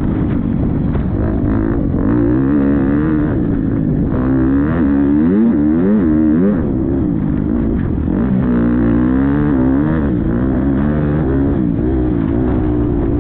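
Motocross bike engine revving up and down over and over, its pitch repeatedly climbing and dropping as the rider works the throttle and gears.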